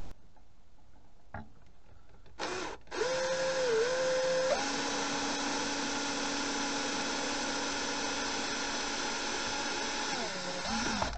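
Small handheld power drill with a 1.5 mm bit drilling a pin hole: a short burst of the motor about two and a half seconds in, then it runs steadily for about eight seconds and winds down near the end.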